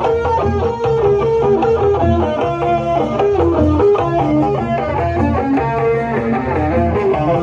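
Instrumental Sundanese kuda renggong music: a plucked melody with bending notes over a steady, repeating drum beat.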